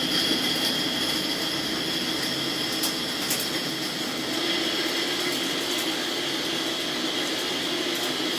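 CNC lathe running a G73 pattern-repeating roughing cycle in automatic mode: steady spindle and cutting noise with a few faint ticks.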